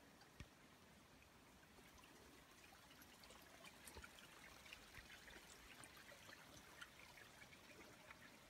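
Near silence: faint woodland ambience with scattered soft ticks and crackles.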